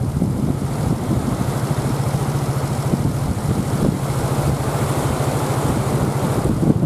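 Typhoon-force wind buffeting the microphone, with surf behind it and a steady low hum underneath.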